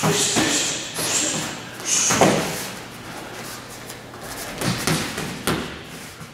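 Padded gloves and pads being struck in quick combinations: irregular sharp smacks in small clusters, the loudest about two seconds in.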